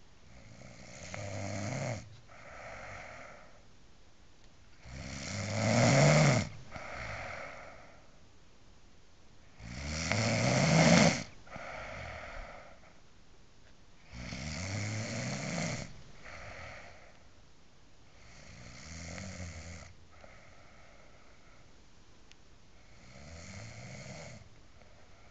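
A woman snoring heavily in a slow, regular rhythm: six snores about every four to five seconds, each followed by a shorter, softer breath. The second and third snores are much louder than the rest.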